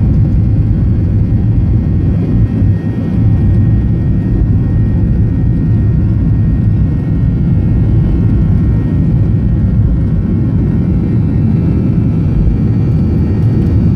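Jet airliner on its takeoff roll, engines at takeoff thrust, heard from inside the cabin. A loud, steady low rumble with a faint high engine whine above it.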